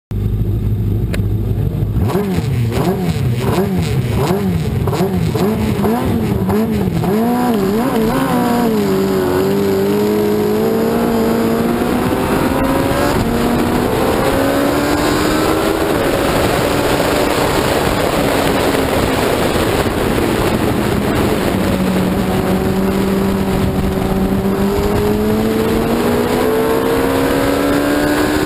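F1 racing sidecar's 1000 cc four-stroke motorcycle engine heard onboard: it idles briefly, then is revved quickly up and down in pulses at the start. About eight seconds in it pulls away, revs climbing in long rising runs, each broken by a drop at a gear change as it accelerates through the gears.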